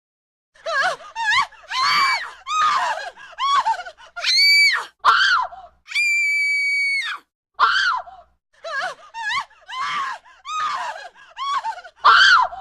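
A string of short, high-pitched screams from horror sound effects, one after another with dead silence between them. A single long, steady shriek comes about halfway through, and the last scream ends just before the close.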